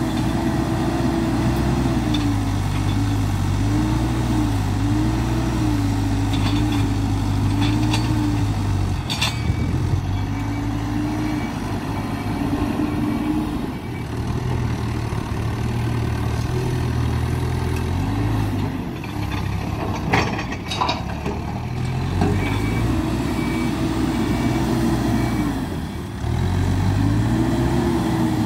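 Hidromek 102B backhoe loader's diesel engine working under hydraulic load, its speed rising and falling again and again as it digs and loads. Sharp knocks come about 9 s in and again around 20 to 21 s.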